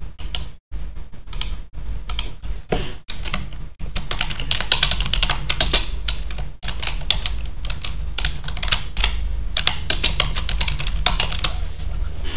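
Typing on a computer keyboard: quick, uneven runs of key clicks as a name is typed into a form, over a steady low hum.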